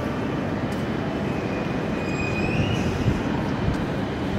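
Steady low rumble of trains standing at station platforms under the train-shed roof, with a thin high whine that rises briefly about halfway through.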